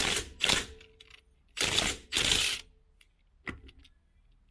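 Makita DTW1002 cordless impact wrench, set to its lowest power setting, hammering a wheel's lug nut in four short bursts, two quick pairs about a second and a half apart, followed by a single click.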